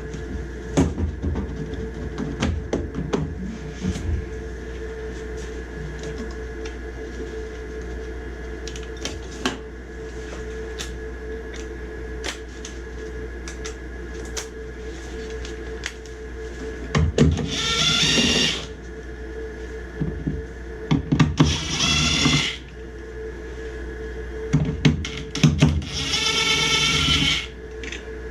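A cordless drill/driver runs three times in short bursts of a second or two each, driving screws on the furnace's sheet-metal collector box. Clicks and knocks of metal parts being handled come between the runs, over a steady hum.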